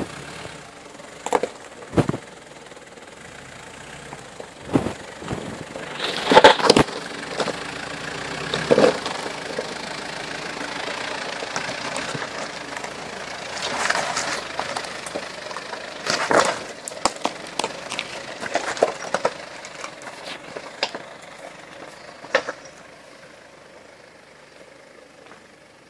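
A Mitsubishi Pajero 4x4 crawling over rough forest ground: the engine runs steadily under irregular knocks, scrapes and crunches from the tyres and body, loudest about six seconds in and again around fourteen and sixteen seconds.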